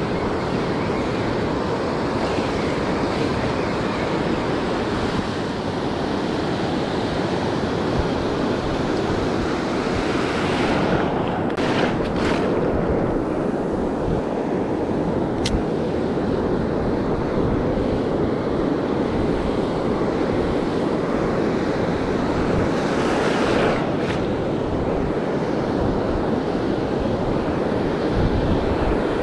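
Ocean surf washing onto the beach, with wind rumbling on the microphone; the surf noise swells briefly twice.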